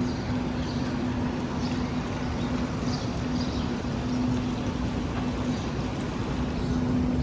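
City street ambience with a steady low mechanical hum and faint high chirps.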